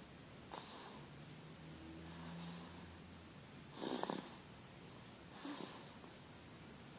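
A sleeping baby snoring: three short, noisy snores a few seconds apart, the loudest about four seconds in.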